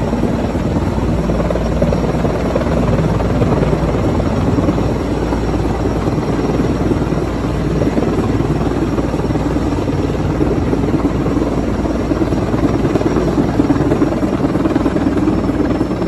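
Sikorsky S-64 Skycrane heavy-lift helicopter hovering with a load line slung beneath it, its rotor and engines running with a loud, steady drone that swells a little near the end.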